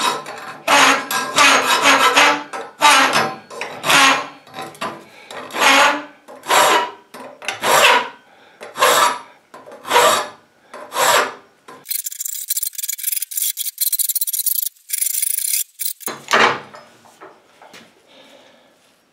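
Half-round bastard file rasping the casting flash off a cast aluminum part, in long separate strokes about one a second. Near the middle it turns to a few seconds of quicker, thinner scraping, then one more full stroke and it trails off.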